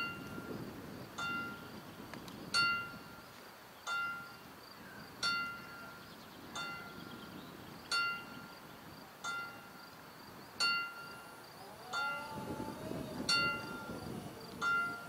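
Mechanical level-crossing warning bell (Läutwerk) striking single strokes about once every 1.3 seconds, each stroke ringing on with a bright metallic tone: the warning that the barriers are about to close. About twelve seconds in, the barrier drive starts under the bell, a low hum with a gliding motor whine as the booms begin to lower.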